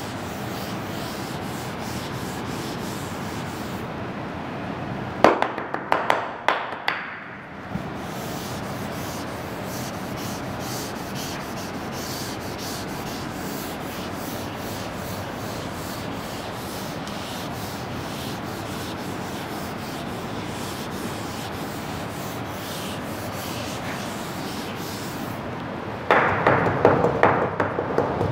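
A classroom board being erased with a duster: steady rubbing across the board. About five seconds in it is broken by a few sharp knocks, then the rubbing resumes. Near the end the strokes turn louder and choppier.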